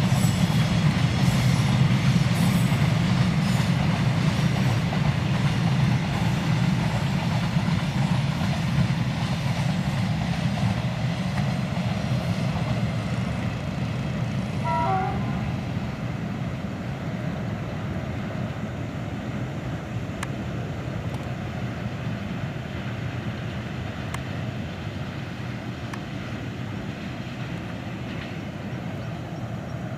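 Long freight train of a diesel locomotive and wagons rolling past, a steady low rumble that slowly fades as it moves away.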